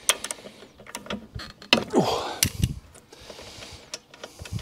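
Ratchet and socket clicking with small metal tool clinks as a spark plug is unscrewed from a lawnmower engine: irregular clicks, with a short rasp about two seconds in.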